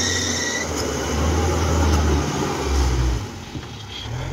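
Engine of a tracked rice-hauling cart running hard under load as it tries to pull out of deep mud, its pitch shifting, with a high whine that stops about half a second in; the engine eases off a little after three seconds.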